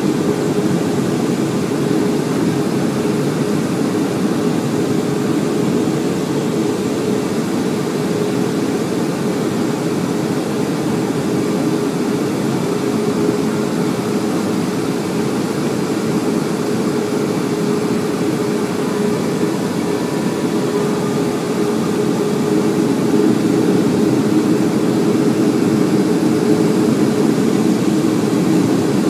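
Boeing 757-200 cabin noise beside the wing: the Pratt & Whitney PW2037 turbofans' steady low roar with a held hum on top, running at approach thrust during the descent to landing. It grows slightly louder for the last few seconds.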